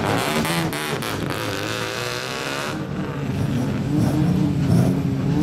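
Engines and exhausts of old lowered Japanese cars driving slowly out one after another. From about three seconds in, a low engine drone grows louder as the next car pulls past.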